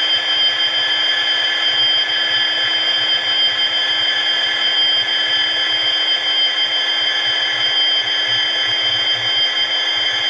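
Dapol Class 66 N gauge model locomotive running at a steady speed, a constant whine of several steady tones.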